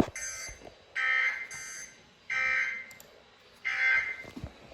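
Three evenly spaced bursts of Emergency Alert System SAME digital data tones, buzzy warbling squawks about a second apart: the end-of-message code that closes a broadcast alert. A sharp click comes right at the start.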